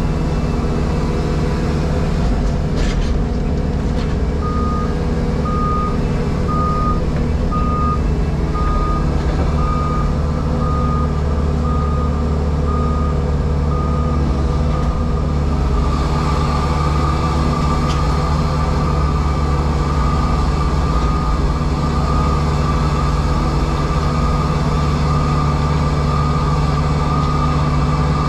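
JCB Pothole Pro's diesel engine running steadily, heard from inside the cab, with a warning beeper sounding about once a second from about five seconds in, then changing to a continuous tone of the same pitch a couple of seconds after it stops.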